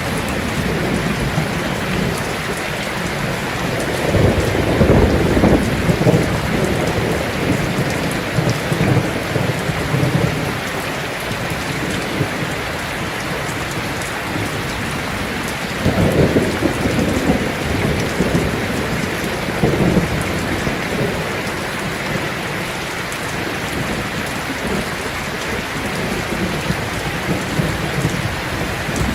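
Heavy rain falling steadily on a tin roof. Low rolls of thunder rumble under it about four seconds in and again around sixteen and twenty seconds.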